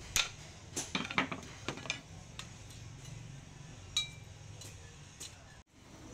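A steel file clinking and knocking against a steel stake anvil: a quick cluster of sharp metal taps in the first two seconds, then a few scattered clinks, one with a brief ring about four seconds in.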